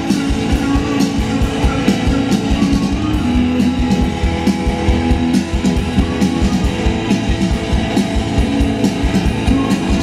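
Rock music with guitar and drums, with a steady beat.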